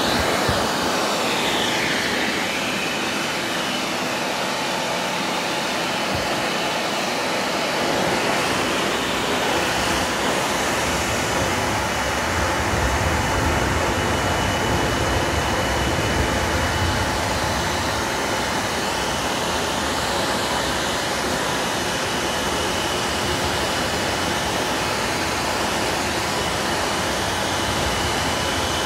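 Pet blow dryer running, a steady loud rush of air with a thin high whine over it.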